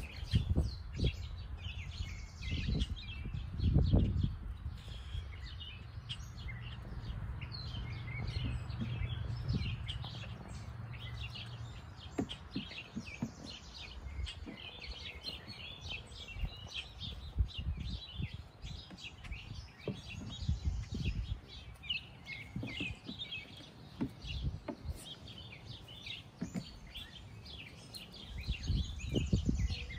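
Small birds chirping and twittering continuously, many short high calls overlapping one another, over irregular low rumbling.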